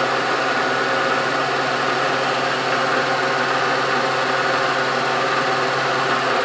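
Milling machine spindle running steadily with an edge finder in its collet, a hum of several steady tones; near the end the hum drops in pitch as the spindle slows.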